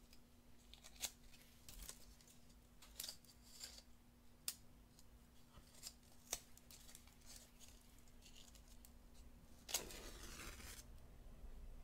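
Faint clicks and taps of matches and a matchbox being handled, then a match struck a little under ten seconds in, its scrape and flare lasting about a second.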